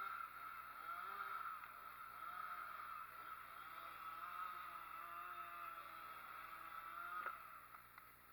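Chainsaw engine running with a wavering pitch, then cut off abruptly about seven seconds in.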